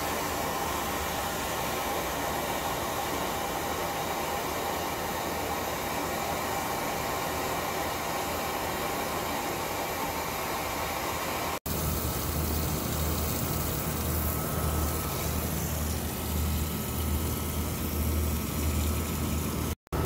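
Handheld gas torch burning with a steady hiss while its flame heats a copper pipe joint for soldering. About two-thirds of the way through, after a break, a slightly louder steady noise with a low pulsing hum takes over.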